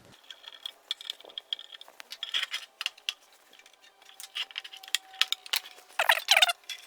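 Light metallic clicks, taps and rattles of a desktop computer power supply's sheet-metal case and small screws being handled as the unit is opened. A short, high, wavering sound comes near the end.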